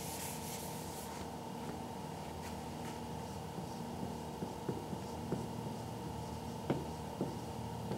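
Whiteboard eraser rubbing over the board briefly at the start, then a dry-erase marker writing on the whiteboard, heard as a few light strokes and taps in the second half, over a steady room hum.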